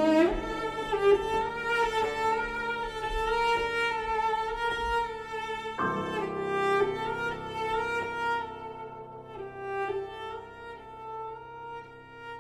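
Cello played with the bow, holding long high notes; a new note enters about six seconds in, and the playing grows softer toward the end.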